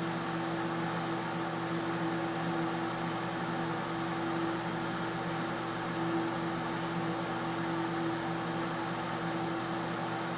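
3D printer running, making the odd noise its owner calls funny: a steady whine held on one pitch over a hum and fan-like hiss, cutting off near the end.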